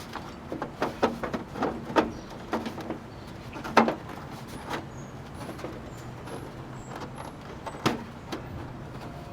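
Plastic clicks and knocks as a hose is worked onto a plastic downspout diverter, with a sharper knock about four seconds in and another near the end. A steady low engine hum runs underneath for a few seconds in the second half.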